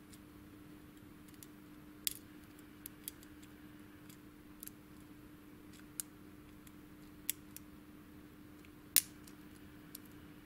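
Lock pick and tension tool working the pins of a Thirard euro-profile cylinder lock: scattered, irregular small metallic clicks and ticks, the loudest about nine seconds in. A faint steady hum runs underneath.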